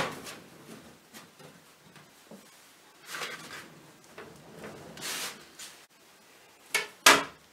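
Soft kitchen handling sounds of a knife and fingers scraping and rubbing as small pieces of margarine are dotted onto a rolled potato roll in a baking tin, with two short sharp knocks near the end.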